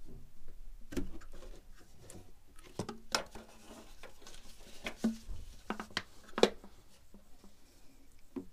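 Scattered clicks, taps and light knocks of hands handling a rubber power-steering hose and its fitting in a car's engine bay, the sharpest knock about six and a half seconds in.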